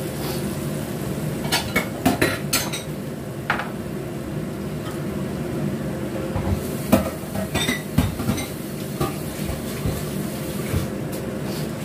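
Thick blended chili-tomato spice paste with spring onions cooking in a frying pan, bubbles bursting with scattered sharp pops and clicks, a cluster near the start and another about seven seconds in, over a steady low hum.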